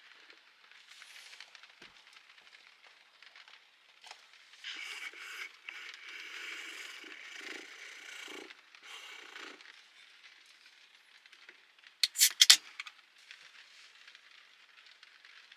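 Rain pattering on a small camper shell, with a louder stretch of patter in the middle. About twelve seconds in comes a sharp crack and short hiss, the loudest sound: a drink can's ring-pull being opened.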